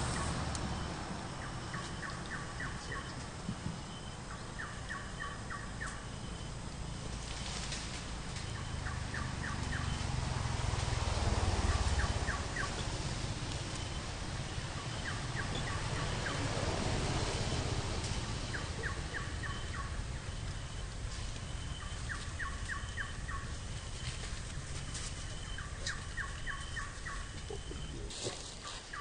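A bird calling, short quick trilled phrases of a few rapid notes repeated every two to three seconds, over a steady low rumble.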